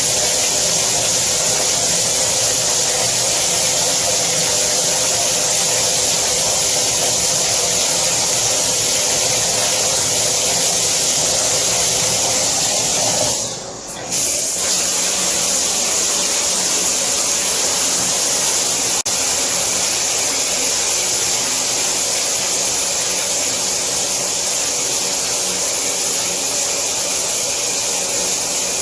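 Shower running: a steady hiss of water spraying down, which dips briefly about halfway through before carrying on.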